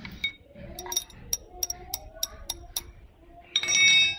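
Small metal parts and tools clinking on a workbench: a run of about eight sharp, ringing clinks, then a louder jangling metal rattle near the end.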